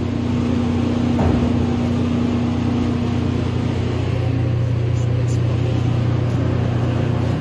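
Spray booth exhaust fan motor running with a steady low hum as it pulls air out through the booth's filter.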